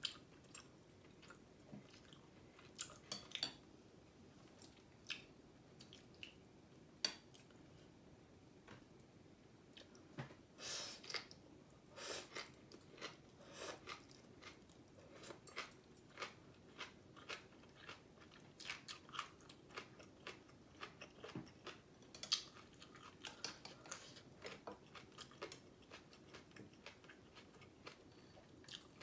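Faint close-up eating sounds: chewing and slurping of soup noodles, with scattered small clicks of metal chopsticks and spoon in a glass bowl. A longer slurp comes about ten seconds in, and another just after.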